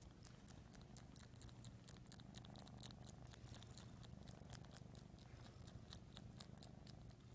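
Domestic cat purring softly, a steady low pulsing rumble, with a run of small quick clicks, about seven a second, over it.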